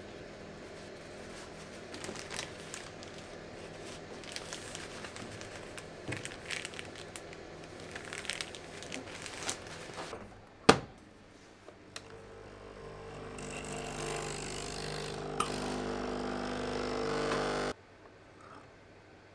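Kitchen work sounds: irregular clattering and scraping of utensils, then a single sharp click, followed by an appliance's motor hum that grows louder for several seconds and cuts off suddenly.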